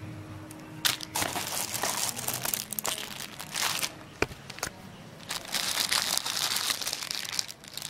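Clear plastic wrapping around a new keyboard crinkling as it is handled, in irregular bursts. The crinkling starts about a second in and eases off for a moment near the middle, where there is a single sharp click.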